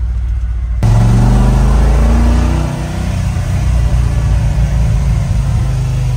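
Truck engine pulling away from a standstill, heard from inside the cab. About a second in, the engine note and road noise rise sharply as it accelerates, then ease into steady driving.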